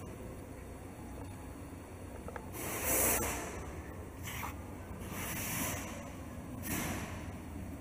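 Three short hissing bursts, each about half a second long, about two seconds apart, over a steady low hum.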